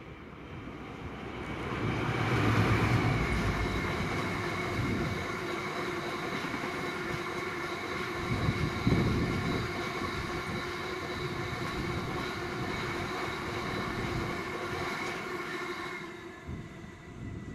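Class 60 diesel locomotive passing at speed with a long train of empty box wagons. The locomotive is loudest about two to three seconds in, then comes the steady rolling rumble and a high ringing tone from the wagon wheels on the rails, with a couple of louder knocks about nine seconds in. The sound fades as the last wagon passes, near the end.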